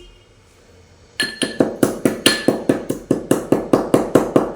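Pestle pounding spices in a mortar to a fine powder for kadha: a quick, steady run of clinking strikes, about four or five a second, starting about a second in.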